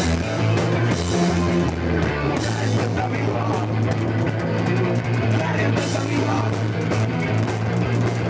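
Hardcore punk band playing live: distorted electric guitars, bass and drums with crashing cymbals, loud and unbroken. The low bass notes change about two seconds in.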